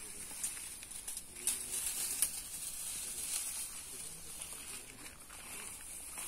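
Faint rustling of leaves and brush, with a few light knocks, over a steady high hiss of outdoor background.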